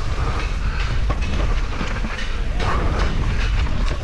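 Downhill mountain bike descending a rough, muddy trail at speed, heard from a camera on the rider: a continuous low rumble with the bike rattling and clattering over the bumps.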